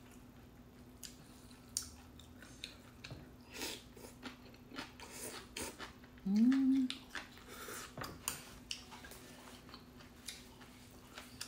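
A person eating stir-fried squid with thin noodles: chewing and mouth smacks, with small clicks of metal chopsticks against a glass container. About six seconds in comes a louder slurp of noodles that rises in pitch.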